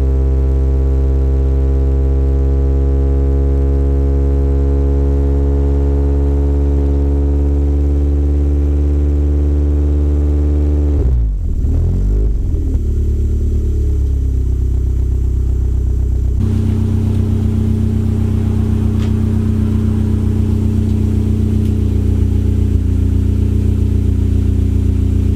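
Ford Sierra RS Cosworth's turbocharged four-cylinder idling cold through a full stainless steel Mongoose exhaust, a loud, steady note that settles slightly lower over the first ten seconds. About eleven seconds in, the note briefly dips and recovers, then runs on at a steady idle.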